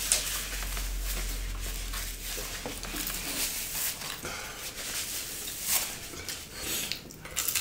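A man blowing his nose into a paper napkin for about the first two seconds, then eating sounds with scattered short clicks of hands and food against plates.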